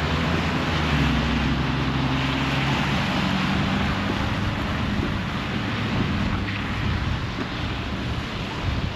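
Passing traffic: a vehicle's engine hum, low and steady, fading away after about four seconds, over a steady hiss of wind and road noise.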